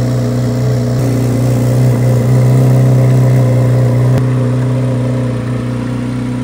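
Chevrolet Corvette C8 Z06's 5.5-litre flat-plane-crank V8 idling as the car creeps slowly out of the garage past the camera. The steady low hum grows a little louder midway as the car comes closest, then eases off, with one brief click about four seconds in.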